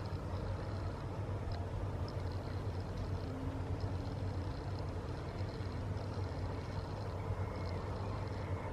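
Steady low rumble of distant road traffic, with faint high-pitched chirps over it.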